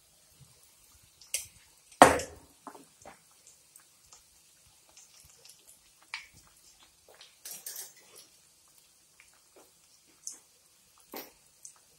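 Battered ivy gourd (kovakka) bajji deep-frying in hot oil in a pan: scattered pops and crackles over a faint sizzle, with one loud knock about two seconds in.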